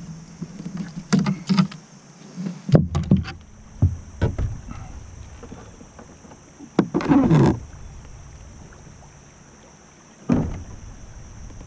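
Scattered knocks, thumps and rustles of handling in a plastic fishing kayak, with a brief louder rush of noise about seven seconds in and one more knock near the end.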